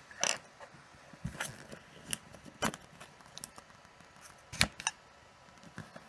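A thin plastic pry tool worked between a cylindrical lithium-ion cell and the hot-glued plastic case of a small power bank, prying the cell loose: irregular clicks, creaks and scrapes, the loudest a little over four and a half seconds in.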